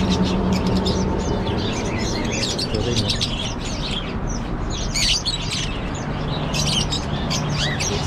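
Many small caged birds chirping at once in a dense, constant chatter of short high calls, with a low steady hum underneath at the start and again near the end.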